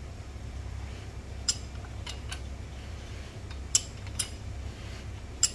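About six sharp, irregularly spaced metallic clinks from a short wrench on the crankshaft as a bare 427 Chevy big-block is turned over by hand, its timing chain and cam gear turning smoothly. A steady low hum runs underneath.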